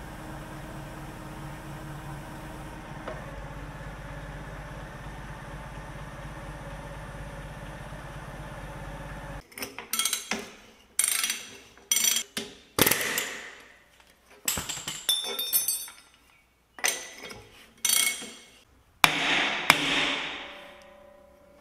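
A steady low mechanical hum that cuts off abruptly about nine seconds in, then about nine sharp clanks and knocks, each with a brief ring, typical of metal tools and parts being struck and set down.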